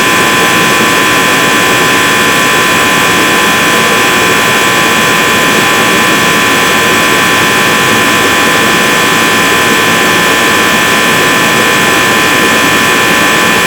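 John Deere AC-70-1 forced-air portable heater running steadily on No. 2 diesel: a loud, even rush of air from its fan and burner, with a steady high whine over it.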